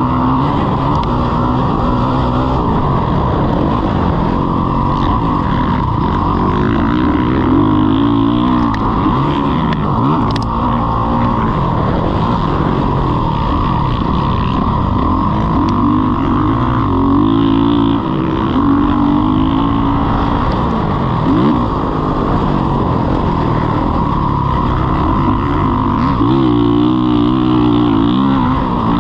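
Motocross dirt bike engine being ridden hard, revving up and down over and over as it climbs and falls in pitch.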